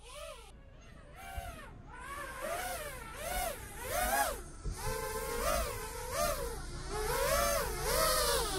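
5-inch FPV quadcopter's motors and propellers whining, the pitch swooping up and down over and over as the throttle is blipped, getting louder toward the end.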